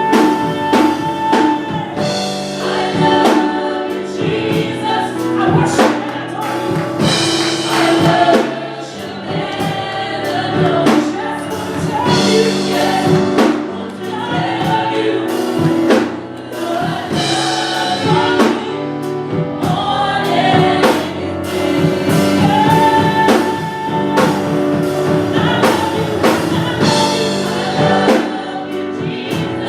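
Gospel singers performing a song together with a band, a drum kit keeping the beat under the voices.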